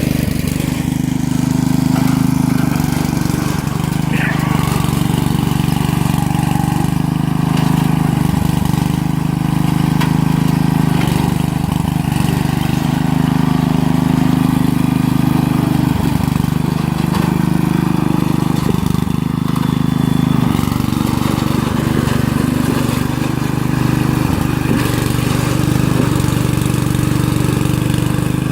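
Lawn mower engine running continuously, its pitch and load shifting several times as it works, with a few short knocks.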